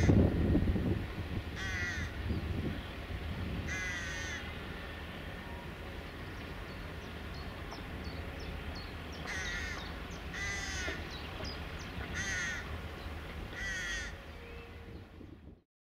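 A crow cawing, seven harsh calls spaced one to two seconds apart with a pause in the middle, while smaller birds chirp faintly. A low rumble is heard in the first second. The sound cuts off just before the end.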